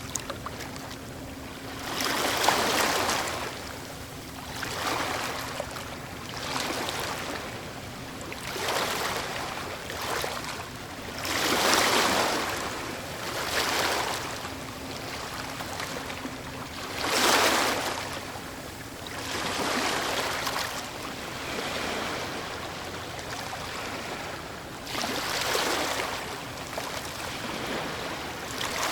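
Waves breaking and washing in, one surge of noisy surf every two to three seconds over a steady background wash; the biggest breaks come about halfway through and again a few seconds later.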